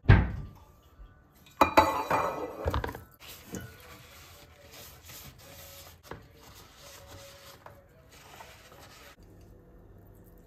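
Kitchenware clattering on a countertop: a sharp knock at the start, then a metal muffin tin set down with a ringing clatter. This is followed by softer scraping as a spoon and spatula scoop blueberry muffin batter into the tin.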